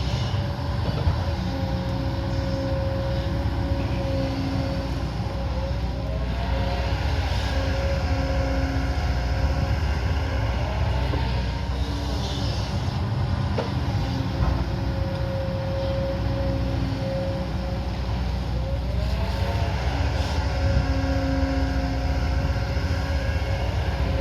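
Hydraulic excavator's diesel engine running under load, with a whine that shifts pitch and glides upward in a repeating cycle about every six to seven seconds.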